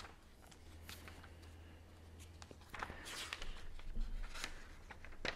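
Pages of a Bible being leafed through by hand: soft papery rustles and flicks, louder from about three seconds in.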